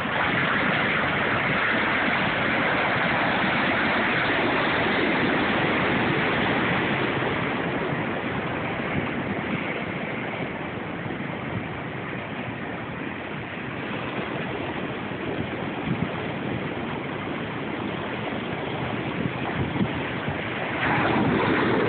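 Ocean surf breaking and washing in white water, a steady rush swollen by hurricane swell. It is loudest in the first several seconds, eases a little in the middle and swells again near the end.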